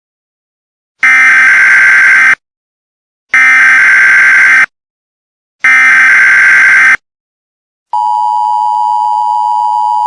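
Emergency Alert System header: three loud, harsh digital data bursts, each a little over a second long, separated by short gaps. About 8 seconds in, the steady two-tone EAS attention signal starts, announcing a new alert.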